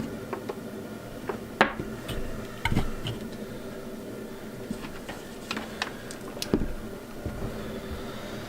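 Scattered light clicks and knocks of clamps, tools and wire being handled at a workbench, over a steady low hum; the sharpest click comes about a second and a half in.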